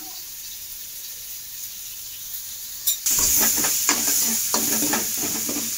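Onion, tomato and spice masala sizzling in oil in an aluminium kadai, being sautéed until the tomatoes soften. From about three seconds in it gets louder, with a spatula scraping and stirring against the pan in repeated strokes over the sizzle.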